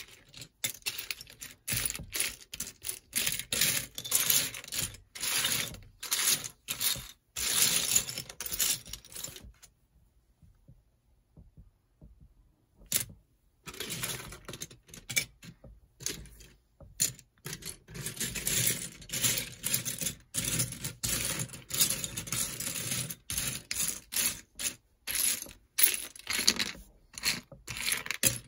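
LEGO boxes, bags and plastic pieces being handled: irregular clattering clicks, rattles and scrapes, with a lull of about three seconds a third of the way in.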